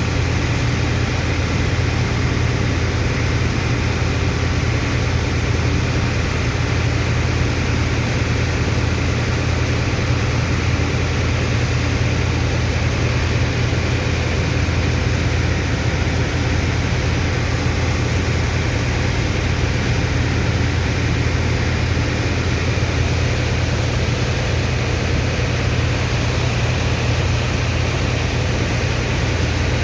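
The engine of a sand-unloading dredger pump running steadily: a deep, even hum with a constant rushing noise above it.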